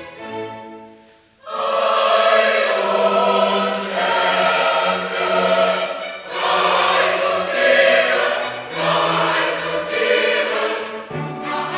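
Music: a choir singing sustained chords, coming in strongly about a second and a half in after a quiet string passage dies away.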